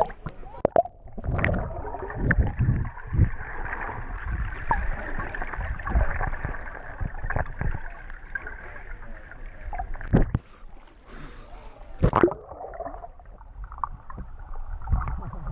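A GoPro's microphone under water: muffled gurgling of bubbles and dull thumps from a swimmer's strokes. About ten seconds in the camera breaks the surface for a couple of seconds of splashing open-air sound, then goes under again.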